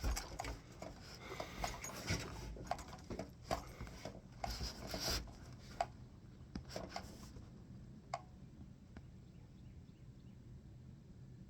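Rustling and irregular small clicks from handling the rifle and gear on the shooting bench close to the microphone, busier for the first several seconds and then dying down.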